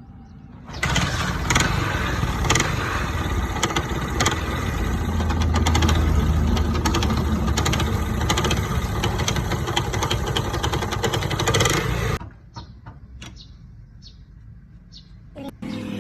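125 cc motorcycle engine running at idle. It comes in abruptly about a second in and cuts off suddenly near twelve seconds, after which only a few faint clicks remain.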